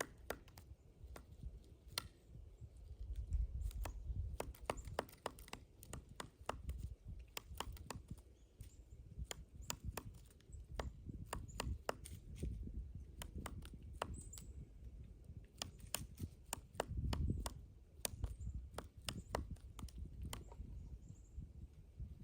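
Pileated woodpecker chiselling into a pine trunk: sharp, irregular knocks, at times several a second in quick clusters, over a low rumble.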